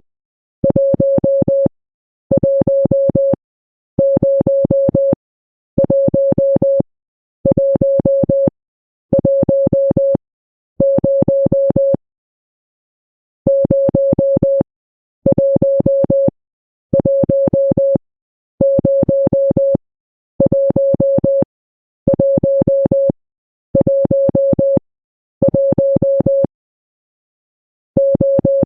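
Morse code tone: a steady beep of about 600 Hz keyed in a long string of dashes, each about a second long with short gaps between them, and one longer pause about twelve seconds in.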